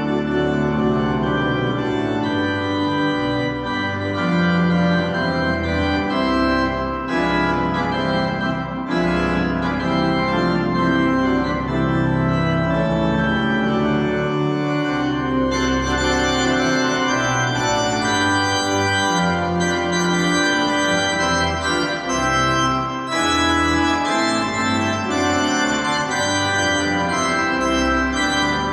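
Church organ playing full sustained chords that move every second or so: the closing voluntary after the final blessing of the service.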